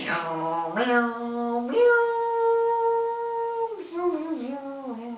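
A man's voice singing a wordless mock guitar solo: notes stepping upward to one long high held note about two seconds in, then wavering and dropping lower.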